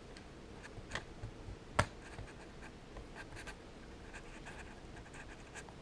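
Parts of an airsoft Tri-Shot shotgun being handled and worked loose during disassembly: faint scraping with a few sharp clicks, the loudest a little under two seconds in.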